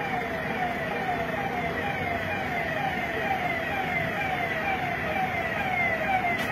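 Police vehicle siren wailing in a fast repeating pattern, each cycle a falling sweep in pitch, just under two a second, over a steady low vehicle rumble.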